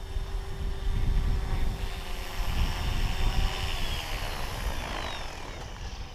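Small electric RC helicopter (MSH Mini Protos) with its rotor and motor whining as it comes down to land; the whine slides down in pitch in the second half as the head slows. Gusty wind rumbles on the microphone.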